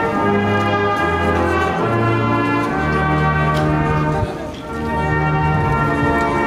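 Military brass band (trumpets, trombones, horns and tubas) playing a slow piece with long held bass notes that change every second or so. The music dips briefly between phrases about four seconds in.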